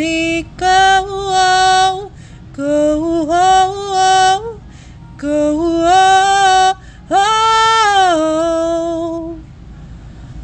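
A solo voice singing long held notes in four phrases with short breaks between them. The last note swoops up and then falls away as it fades.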